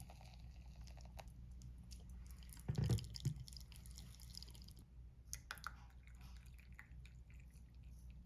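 Quiet room tone with small clicks and rustles of handling, and one dull thump about three seconds in.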